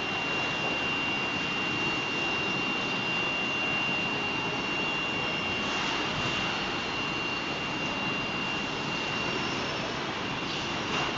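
Steady factory machinery noise around a powered roller conveyor line: an even rushing hiss with a thin, steady high whine running through it.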